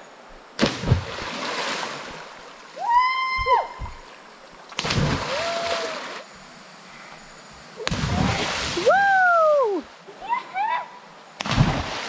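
People jumping into a river pool, four loud splashes as bodies hit the water, with whooping shouts between the splashes.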